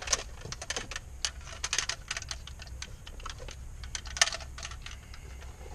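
Irregular small clicks and taps of wiring and Deutsch connector pins and plugs being handled at a tool case, with one sharper click about four seconds in.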